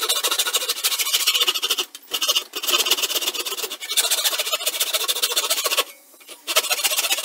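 Handsaw cutting through pallet wood: repeated rasping back-and-forth strokes. It breaks briefly about two seconds in and again for about half a second near the end.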